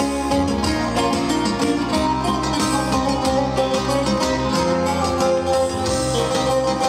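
Live band music: two bouzoukis playing a fast plucked melody over a sustained bass and keyboard accompaniment.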